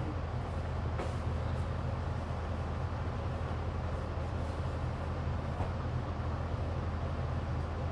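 Steady low hum with an even background hiss, and the faint rustle of clothes being handled and folded; a light click about a second in.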